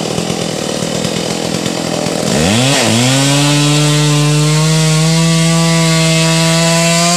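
Two-stroke chainsaw running loud and rough at low speed, then revved about two seconds in: the pitch sweeps up, dips once and climbs again. It then holds steady at high speed.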